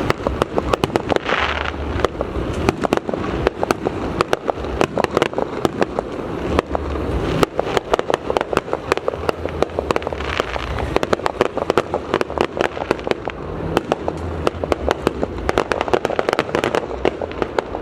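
Aerial fireworks going off in a rapid, dense barrage: many sharp bangs and crackles each second, with a few louder cracks standing out, over a low rumble.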